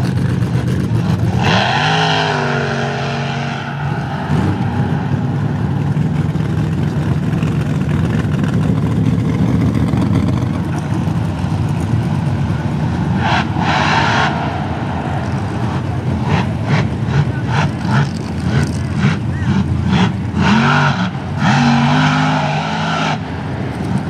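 Blown big-block 540 V8 running on alcohol with a 14-71 supercharger, revving hard: its pitch climbs about two seconds in and again near the end, with a run of short sharp bursts in between.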